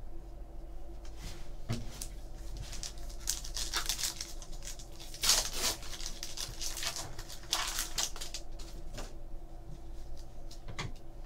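Trading cards and their pack wrapper being handled up close: crisp rustles, slides and small clicks as cards are flicked through, loudest about five seconds in, over a faint steady hum.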